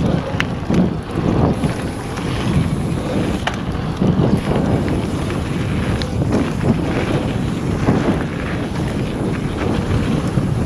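Wind buffeting an action-camera microphone over the rumble of mountain bike tyres rolling fast on a hard-packed trail, with scattered sharp clicks and rattles from the bike.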